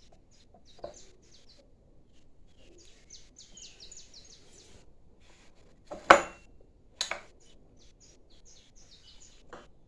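Small birds chirping repeatedly in short high notes. Two sharp knocks about six and seven seconds in, the first the loudest, from parts being handled on the bench.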